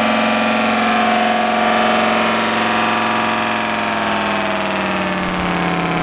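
Homemade model air raid siren with a single five-port rotor, belt-driven by an electric motor, sounding a steady, loud, many-toned siren note whose pitch sags slightly from about three seconds in.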